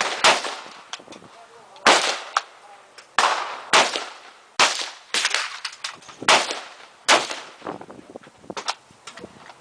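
Gunshots at a shooting range, about eight fired at irregular intervals, each with a sharp crack and a short echoing tail.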